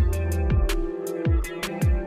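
Electronic background music with a steady beat: deep kick drums about twice a second, sharp percussion clicks and held synth tones.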